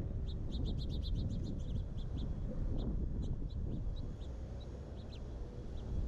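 Small songbirds chirping: a quick run of about a dozen high chirps near the start, then scattered single chirps, over a steady low rumble.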